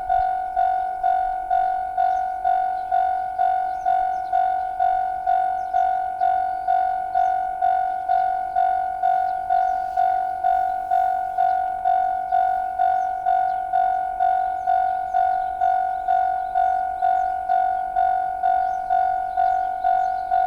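Japanese railway level crossing alarm ringing: an electronic bell repeating one tone about twice a second, each strike fading before the next. It is the warning that a train is approaching and the crossing is closed.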